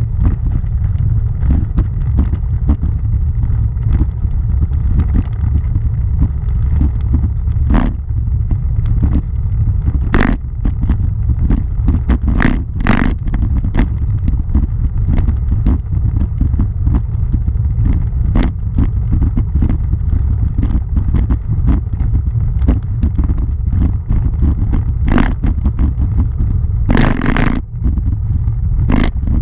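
Bicycle rolling over a cobblestone road: a steady low rumble from the cobbles, with scattered sharp knocks and rattles and a longer rattle near the end.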